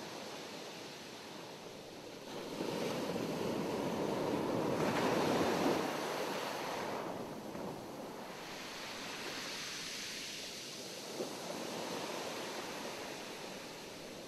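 Rushing surf-like noise of ocean waves, swelling to a peak about five seconds in, falling away, then swelling more gently again.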